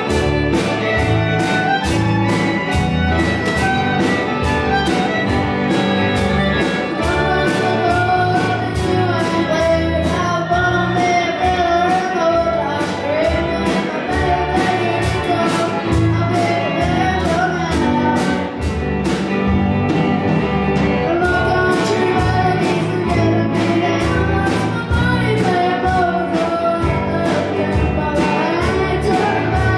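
Children's band playing live: fiddle, electric guitar, bass guitar and drum kit on a steady beat, with a child singing the melody.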